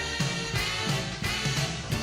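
Upbeat music with a steady, quick beat.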